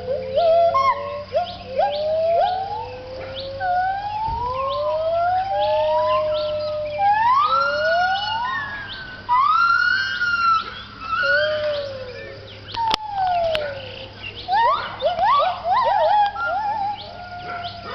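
Several gibbons calling together in their dawn chorus: overlapping whooping calls that swoop up and down in pitch, some rising steeply and held, breaking into a run of quick rising notes near the end. Two sharp clicks come about two-thirds of the way through.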